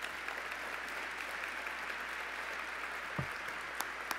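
Audience applauding steadily, with a brief low thump about three seconds in and a few sharper, nearer claps near the end.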